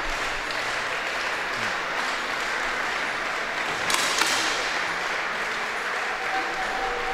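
Spectators in a shooting hall applauding and cheering, a steady hiss of crowd noise, with one sharp crack about four seconds in.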